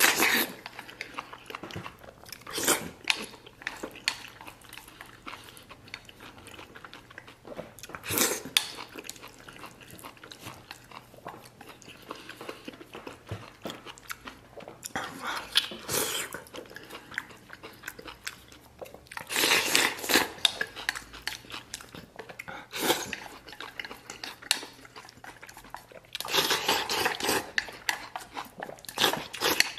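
Close-up eating sounds: chewing, with bursts of slurping as rice soaked in eggplant broth is shovelled from a stainless steel bowl with wooden chopsticks, several times over.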